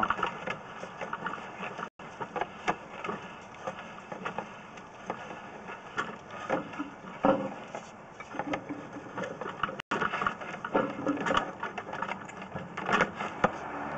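Irregular knocks, clicks and rattles of a sewer inspection camera's push cable being worked back and forth through the cleanout, over a faint steady hum.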